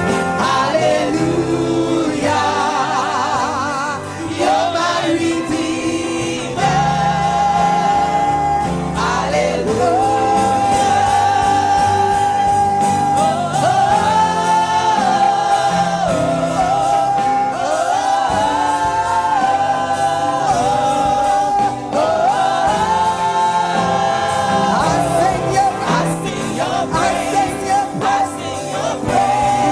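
Live gospel worship singing: women singing into microphones with accompaniment underneath, the melody held on long notes.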